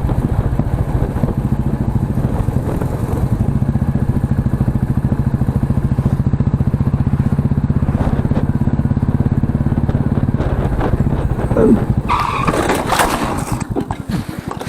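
Motorcycle engine running steadily at road speed. About twelve seconds in there is a sudden burst of scraping and clatter that dies away as the bike goes down and slides on the road in a crash.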